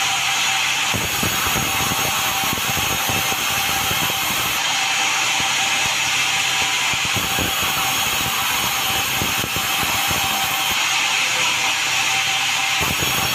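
Sawmill running and sawing meranti timber: a steady, loud machine noise with a constant high whine over a rough, fluttering rumble.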